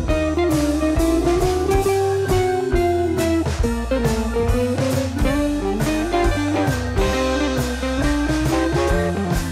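Background music: a guitar playing a bending melody over a steady drum beat.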